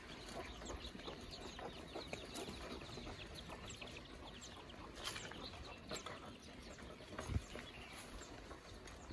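Faint outdoor bird and chicken sounds: many short chirps and clucks, with a few soft knocks in the second half.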